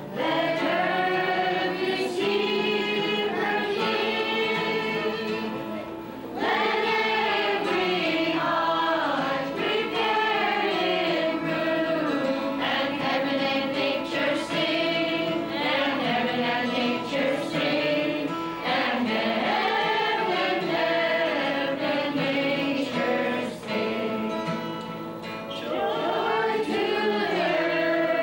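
A choir singing a Christmas carol in sustained, held phrases, with a short break between phrases about six seconds in and again near twenty-five seconds.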